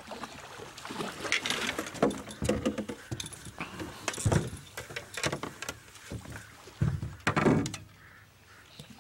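Irregular knocks, clunks and rustling of fishing gear handled in a boat as a landing net is grabbed and swung out, with the loudest clunks about four seconds in and again near the end.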